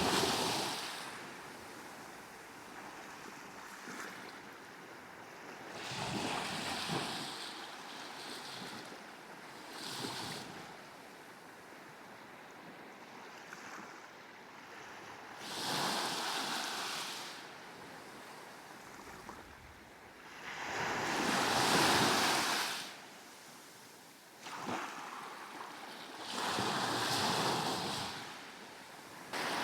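Small sea waves breaking and washing up a sandy beach, each wash swelling up and fading, five times over, the one a little past the middle the loudest. A light steady hiss of wind lies under them.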